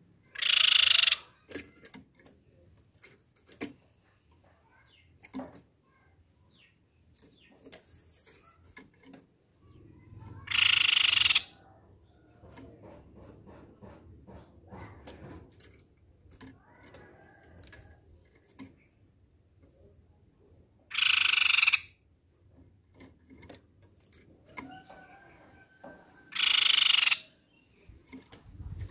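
Crescent-chested babbler (tepus pipi perak) giving four harsh, buzzy rasping calls, each about a second long and several seconds apart. Light clicks and taps come between the calls.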